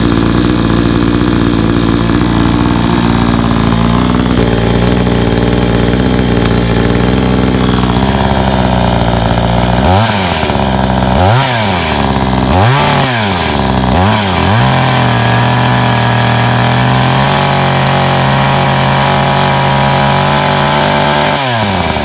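Blue Max 57cc two-stroke chainsaw running on its first start, idling steadily, then revved up and let back down four times in quick succession with the throttle trigger about ten seconds in, driving the chain. After the revs it holds a steady run, with one more rev and drop near the end.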